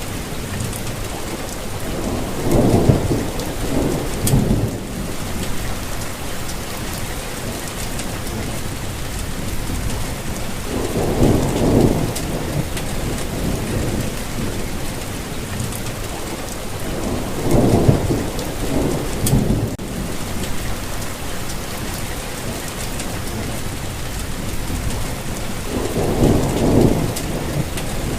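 Steady rainfall, with a low rumble swelling up and fading four times, each lasting a second or two.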